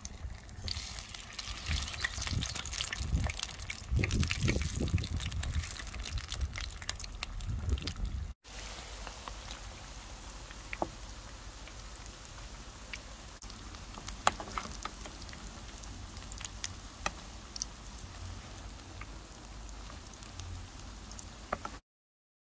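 Potato-and-cheese balls frying in shallow olive oil in a pan. For the first eight seconds the sizzle is loud and busy, with low thumps, as the balls go into the hot oil. After that it is a steadier sizzle with scattered pops and crackles, which cuts off abruptly near the end.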